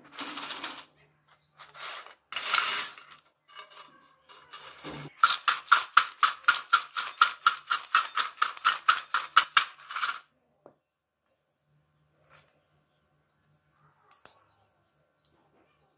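Crisp homemade nacho chips rattling against a stainless steel bowl as it is shaken to toss them with spices: a few short rustles, then a quick, even run of about five shakes a second for some five seconds, ending in near silence.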